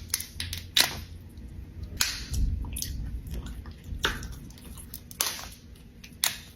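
Close-miked eating of a seafood boil: a series of about six sharp, wet cracks and smacks, a second or so apart, over a low steady rumble.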